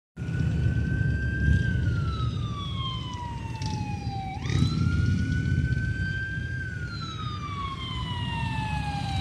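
Emergency vehicle siren on a slow wail: the pitch climbs a little, slides down over about three seconds, then snaps back up, twice. A steady low rumble runs underneath.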